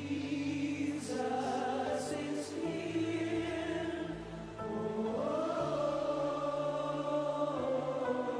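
Slow gospel worship: choir and congregation singing held notes over sustained keyboard chords and bass. About five seconds in, a voice glides up into a long high note.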